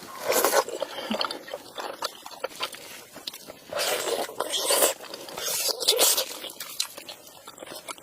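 A person biting and chewing pieces of duck with its fatty skin. There are crunchy bites about half a second in, around four seconds in and about six seconds in, with quieter chewing between them.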